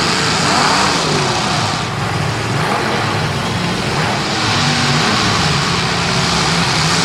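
Several demolition derby cars racing hard, their engines revving with pitches rising and falling against one another over a steady din of engine noise.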